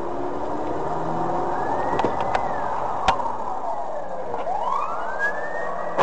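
Ambulance siren wailing, its pitch sweeping slowly up and down, over the steady noise of the car driving, with a few sharp clicks about two and three seconds in.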